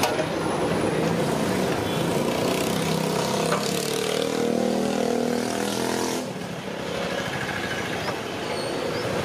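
Busy street noise with vehicle engines running. A louder, pitched engine-like sound stands out from about three and a half to six seconds in.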